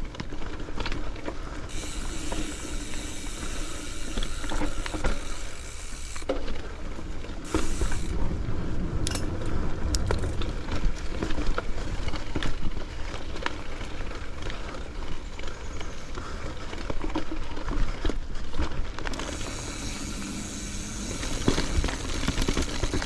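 Schwinn Axum mountain bike ridden over a dirt singletrack trail: steady tyre and trail noise with low rumble, and many small clicks and rattles from the bike.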